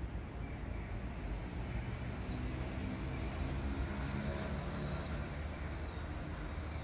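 Steady low rumble of road traffic in the city around the park. From about a second and a half in, a small bird gives a short high chirp about once a second.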